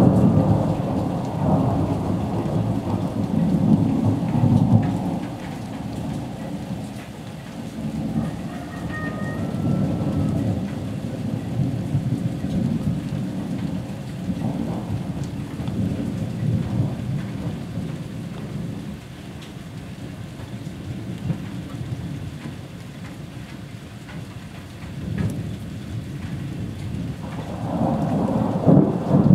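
Rolling thunder rumbling over steady rain: loudest in the first few seconds, dying away through the middle, then building again near the end.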